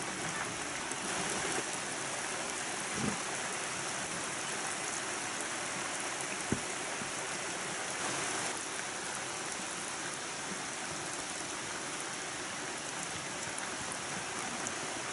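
Steady rain falling, with a single sharp knock about six and a half seconds in.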